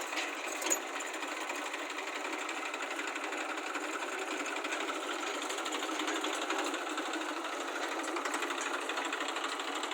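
Heavy diesel engine running steadily under load, a dense, even mechanical clatter with no break.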